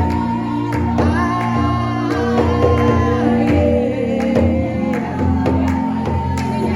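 Worship music: singing over held instrumental chords and bass, with regular percussion strikes.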